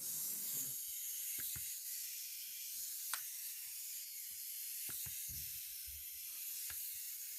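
Small plastic wind-up flipping frog toy running: its clockwork spring motor whirs with a steady hiss-like buzz while the toy flips, and several light, irregular clicks sound as it tumbles and lands on the surface.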